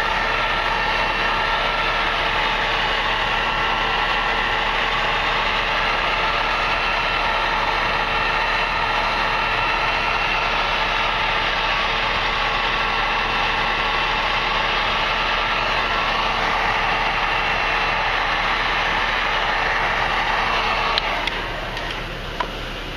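Electric heat gun running steadily, a whine over rushing air, as it warms vinyl composition tile to soften it for cutting; it switches off about 21 seconds in.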